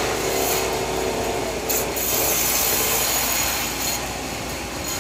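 Power saw cutting through wood, a steady rasping noise with a short louder patch about two seconds in.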